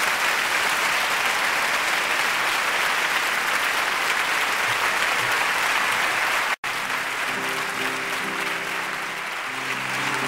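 Audience applauding. About seven seconds in, after a split-second dropout, an acoustic guitar starts picking notes under the applause, which begins to thin.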